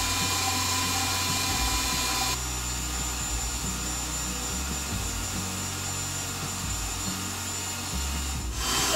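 KitchenAid Professional stand mixer running steadily, its wire whisk beating plain egg whites in a stainless steel bowl at the start of whipping a meringue. The sound drops a little in level and brightness about two seconds in.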